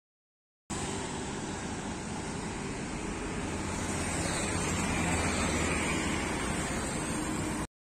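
John Deere 5036 D tractor's diesel engine running steadily, with wind noise on the microphone. The sound starts and cuts off abruptly.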